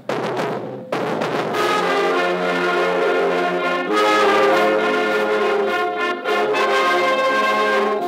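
High school marching band playing a brass-led piece in sustained chords, with a short break between phrases about a second in.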